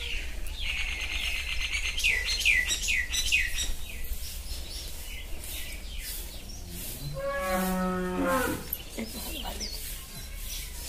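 Small birds chirping in a quick run of falling notes, then, about seven seconds in, one drawn-out, low mooing call lasting about a second and a half.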